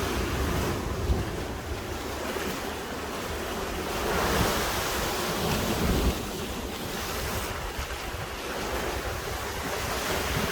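Sea waves washing against the shore, with wind buffeting the microphone; the surf swells louder about four to six seconds in.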